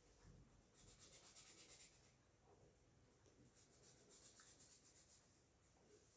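Faint scratching of a colouring pen on paper, in short spells of quick back-and-forth strokes as an area is filled in.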